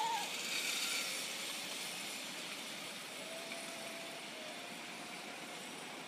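Zip line trolley running along the steel cable, a steady hiss that slowly fades as the rider moves away down the line.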